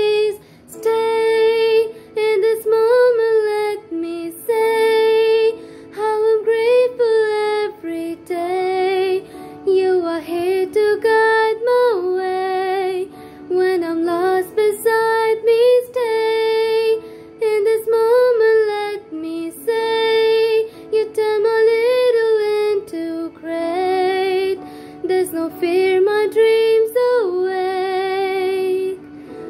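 A girl singing a ballad in English, her pitch wavering on held notes, in phrases broken by short breaths. The sung lines include "When I'm lost, beside me stay" and "There's no fear, my dreams awake".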